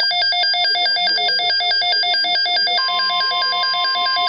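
Electronic alert alarm warbling rapidly between a low and a high pitch, about seven times a second. About three seconds in, a steady single alert tone joins it: the NOAA Weather Radio warning alarm tone that opens a severe weather alert.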